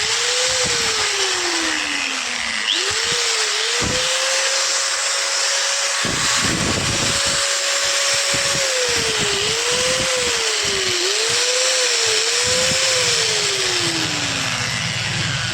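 Bosch 4-inch angle grinder motor switched on and off several times, each time spinning up quickly and coasting down more slowly. In the middle it holds full speed at a steady pitch for about four seconds, and near the end it winds down.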